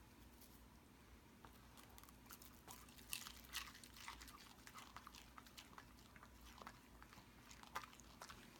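A dog chewing and crunching on a cicada: scattered soft crunches and clicks, the loudest a few seconds in and again near the end.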